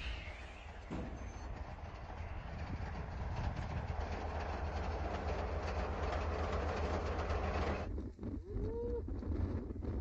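Tank's engine running with a steady deep rumble and a dense hiss of noise, just after the tank has fired its main gun. About eight seconds in the sound cuts off abruptly to a quieter scene, with a brief rising-and-falling call like a shout.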